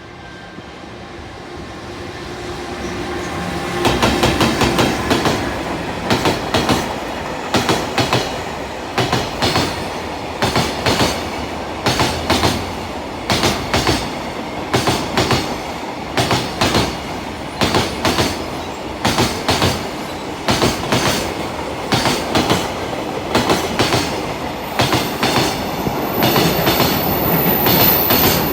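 Freight train hauled by an EF210 electric locomotive passing at speed. It builds up over the first few seconds, then its wheels clatter over the rail joints in regular groups of knocks, about one group a second as each wagon's wheelsets cross. A high thin squeal comes in near the end.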